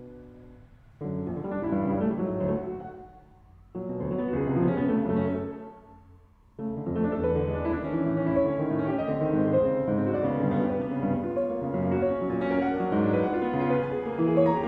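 Background piano music. It comes in short phrases about a second in and again near four seconds, then plays on without a break from about seven seconds.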